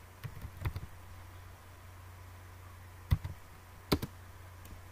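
Computer keyboard keystrokes: a quick run of several key clicks about half a second in, then two single sharp clicks near the end, over a low steady hum.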